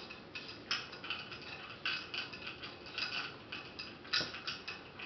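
A small toothless dog eating from a food bowl: quick, irregular clicks and clatters of food and mouth against the bowl, several a second.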